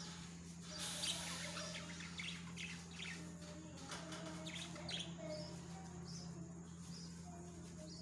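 Budgerigars chirping in a nest box: many short, high chirps with some raspy calls mixed in, loudest about a second in and again about five seconds in.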